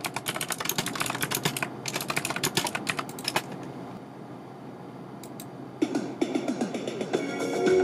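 Rapid computer-keyboard typing, a dense run of keystrokes for about three and a half seconds, then a quieter pause. Near the end, sounds that slide in pitch lead into music.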